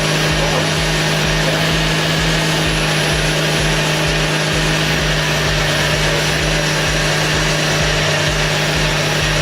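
2001 Subaru Outback's EZ30 flat-six engine running steadily at idle after its head gasket repair: a constant hum with an even, low pulsing underneath.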